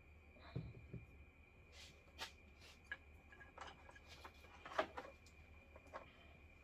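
Faint, scattered small clicks and rustles from hands handling wiring parts and small tools, with a faint steady high-pitched tone behind them. The sharpest click comes about five seconds in.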